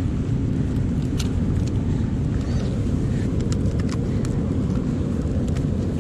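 Steady low rumble of wind on the microphone and surf on a rocky shore, with a few short sharp clicks scattered through it.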